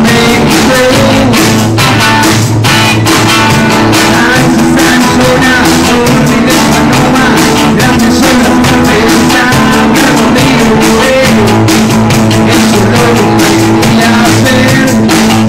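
Live rock band playing loudly: electric guitar, electric bass and drum kit, with a steady drum beat.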